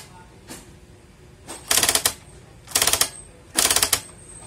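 Brother GX-series electronic typewriter mechanism running in short bursts of rapid mechanical clicking, three bursts about half a second each, roughly a second apart.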